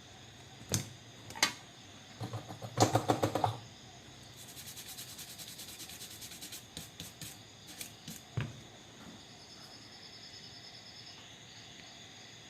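A series of sharp clicks and taps. There are two single clicks, then a quick rattle of clicks, then a run of fast light ticking, with a few scattered clicks and one knock near the end.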